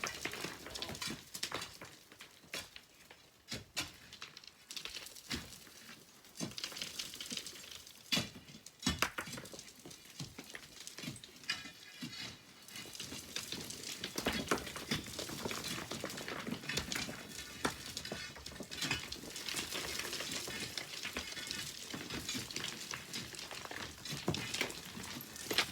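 Sand and pebbles being mined: small stones clicking and clattering against one another over a trickling hiss of running sand, growing busier about halfway through.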